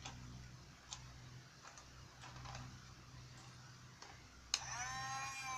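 Light plastic clicks and taps from a toy boat being handled. About four and a half seconds in, a switch clicks and the toy's small battery-powered electric motor starts, spinning up quickly to a steady high whine.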